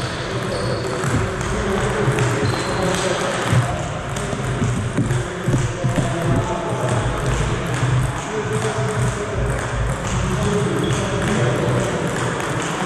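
Table tennis rally: a celluloid-type ball clicking off the paddles and bouncing on the table, over a steady background of voices.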